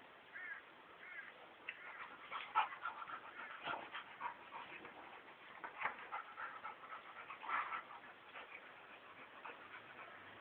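Two dogs play-wrestling: short high whines and yelps mixed with scuffling clicks, busiest in the middle and dying down near the end.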